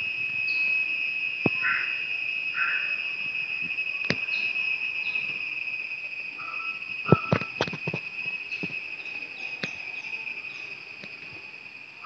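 Insects droning steadily in a high, even tone, with a few short chirps and a cluster of sharp clicks and knocks about seven seconds in.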